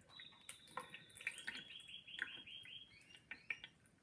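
Thin plastic bag crinkling and squeaking faintly as its neck is twisted tight over the water inside, with a quick run of high squeaks in the middle.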